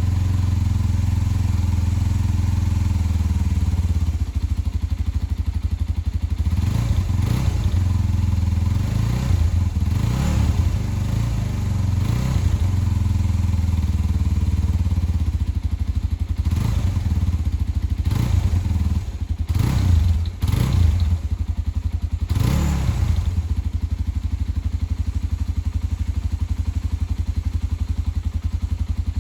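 An engine running steadily at an even low pitch, with a few knocks or clatters through the middle.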